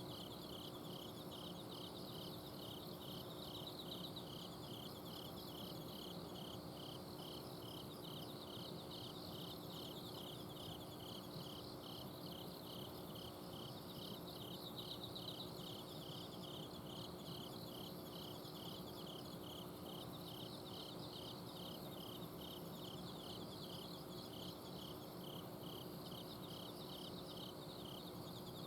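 Autumn night insects singing: crickets keep up a regular chirp about twice a second, with fainter, higher trills from other insects behind it. A steady low hum from an air conditioner's outdoor unit runs underneath.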